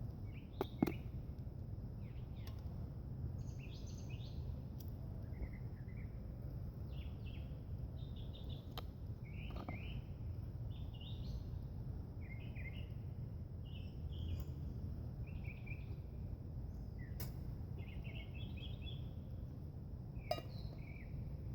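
Small birds chirping in short repeated calls throughout, over a steady low rumble, with a few sharp clicks and clinks from camp cooking gear being handled.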